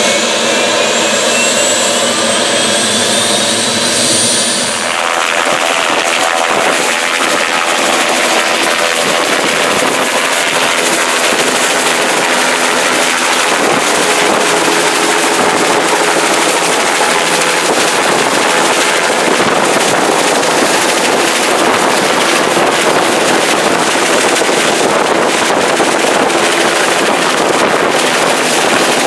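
Light turbine helicopter with a two-bladed main rotor: a whine rises steadily in pitch for the first few seconds. About five seconds in it changes to loud, steady rotor chop and engine noise as the helicopter lifts off and hovers overhead.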